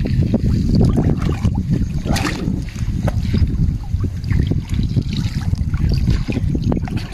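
Seawater sloshing and trickling around people wading chest-deep, with small splashes over a steady low rumble.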